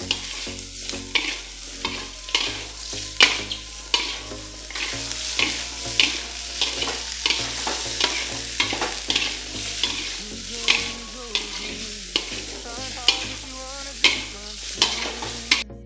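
A metal spatula scrapes and tosses vegetables in a wok, about one to two strokes a second, over steady sizzling from the hot oil as they sauté until soft. The sizzling and scraping cut off suddenly just before the end.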